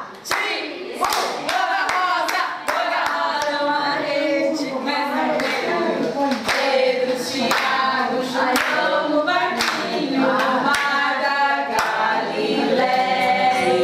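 A group of voices singing together, with hand claps keeping a steady beat.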